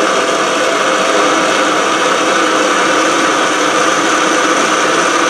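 Electric roof-lift actuators on a Palomino 1251 SS pop-up truck camper running together: a steady motor drone as the roof is raised.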